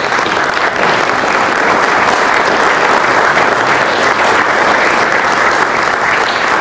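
Audience applauding: many hands clapping in a dense, steady round.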